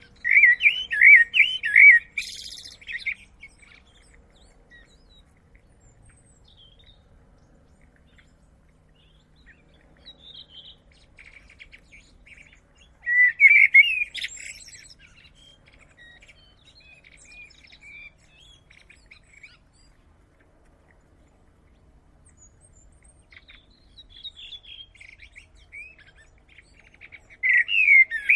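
Common blackbird singing: three loud, fluting, warbled phrases, one at the start, one about halfway through and one near the end, each closing in a higher twitter, with fainter snatches of song in the long pauses between.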